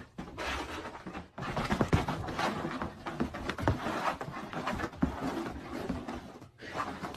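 A dog panting hard in irregular breathy surges while it spins about.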